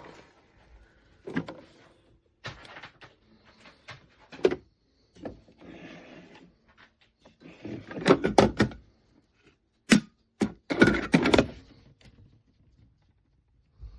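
A string of separate clicks, knocks and thunks of hard plastic parts of a coffee maker being handled, opened and shut, busiest about two thirds of the way through.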